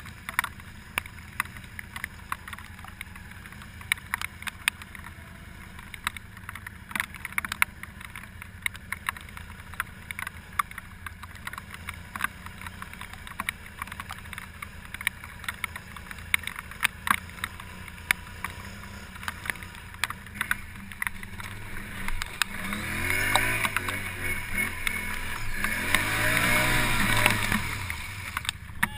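ATV engine running low and steady, with frequent sharp clicks and knocks, then revved hard twice near the end, its pitch rising and falling as it works through mud.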